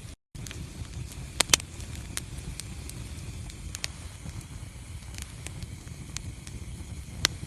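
Wood fire burning in a fireplace: a steady low rumble of flame with constant small crackles, and a few louder pops, two about a second and a half in and one near the end. The sound cuts out completely for a moment just after the start.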